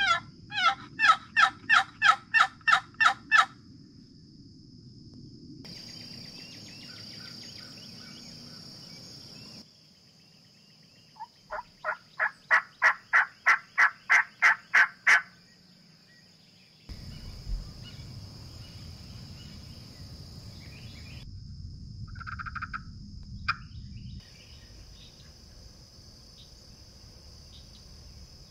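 Two long runs of rapid, evenly spaced turkey yelps, about three or four a second, over a steady high insect trill. A short single call comes shortly after the second run.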